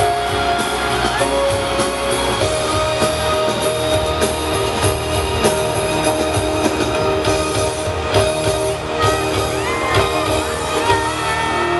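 Live pop music over a concert sound system, with voices singing, recorded from within the crowd. Fans shout and whoop over it, with a few rising cries near the end.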